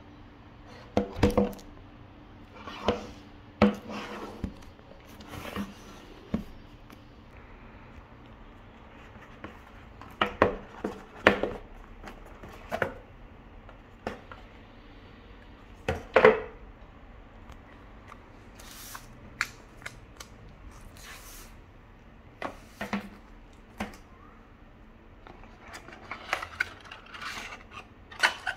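A tablet's cardboard retail box and its packaging being handled on a wooden table: scattered knocks and taps as the lid, paper leaflet and inner tray are moved, with a busier stretch of rustling and tapping near the end.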